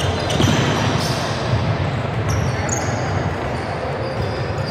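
Basketball being dribbled on a hardwood court, with sneakers squeaking as players cut and stop, all echoing in a large gym.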